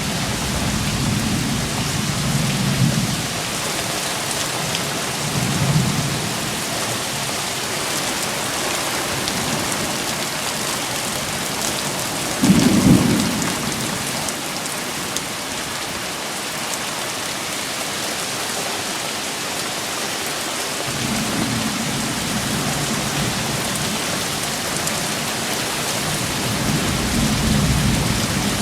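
Heavy rain falling steadily, with low rumbles of thunder coming and going; the loudest, sharper rumble comes about twelve seconds in.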